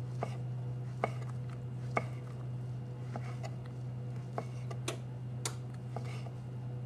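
Knife slicing shiitake mushrooms on a wooden cutting board: irregular sharp taps of the blade meeting the board, the two loudest about one and two seconds in, over a steady low hum.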